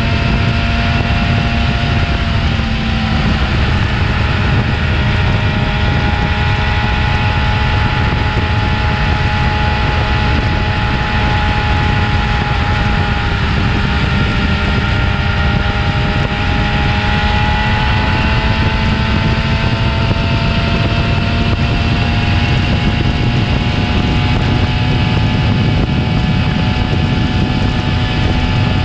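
Yamaha YZF-R6 inline-four engine running on its stock exhaust, held at steady revs that waver only slightly.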